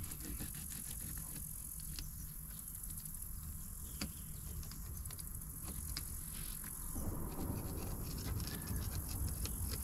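Steady chirring of insects, with faint ticks and scrapes from a fillet knife cutting a crappie on a plastic cutting board; a soft rustling grows louder about seven seconds in.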